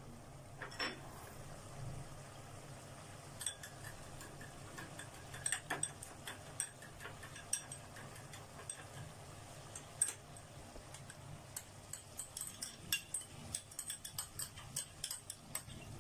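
Metal spoon clinking and scraping against a small glass bowl as fried onions are stirred into yogurt: scattered light taps and clicks over a low steady hum, with the ticks coming faster near the end.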